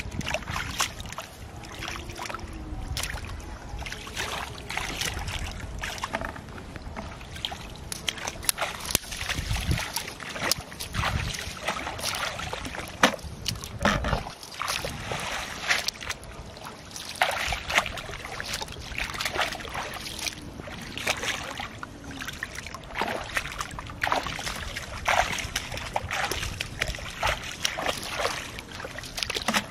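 Irregular splashing and sloshing of shallow muddy water as hands dig through mud and weeds, then as feet wade through the shallows.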